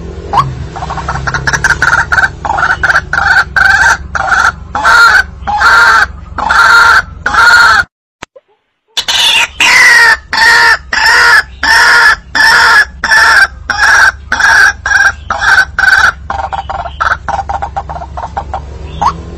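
White-breasted waterhen calling loudly: a fast run of repeated croaking notes, about two a second. The calls break off for about a second midway, then resume with a falling squeal before the repeated notes go on.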